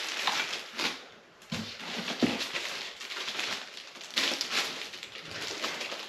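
Pressure washer parts being handled and taken out of a cardboard box: irregular rustling and scraping, with a few light knocks.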